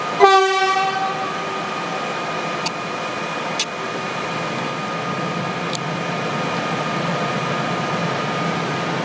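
A train horn sounds one short blast, about a second long. It is followed by the steady hum and high whine of an electric locomotive, the ES64F4 freight engine, with a few sharp clicks.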